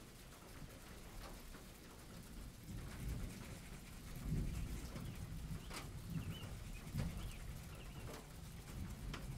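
Rainy-day ambience: faint rain with scattered drips, low rumbling that swells from about three seconds in, and a short bird chirp around six seconds in.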